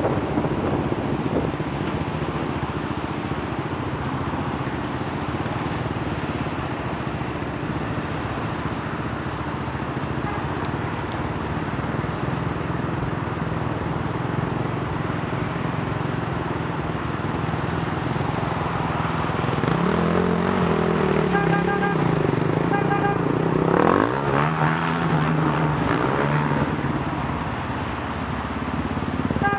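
Steady traffic at a wet road junction: engine hum and tyre hiss. About two-thirds of the way in, an engine revs up, rising in pitch and climbing sharply a few seconds later. Short repeated beeps sound briefly alongside the rev.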